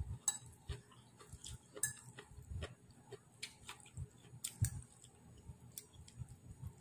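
Metal fork clicking and scraping against a plate while scooping noodles, in irregular light taps, with soft chewing sounds between them.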